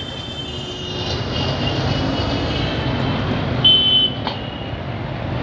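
Busy city street traffic: motorbikes, scooters and auto-rickshaws passing with engines running in a steady hum, and a short horn toot about two-thirds of the way in.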